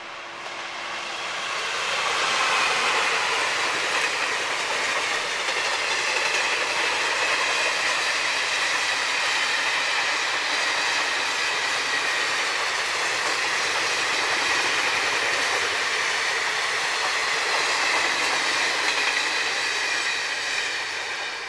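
Indian Railways express passenger train, a WAP-4 electric locomotive and its rake of coaches, rolling past close by: steady wheel-on-rail noise that swells over the first two seconds, holds, and eases off near the end.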